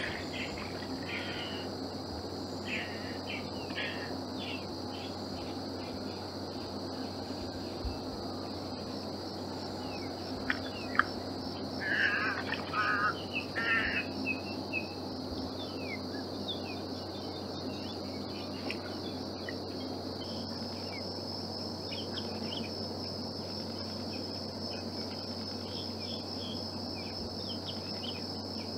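Marsh ambience: a steady high insect buzz runs throughout, with scattered short bird calls over it, loudest in a cluster about 12 to 14 seconds in.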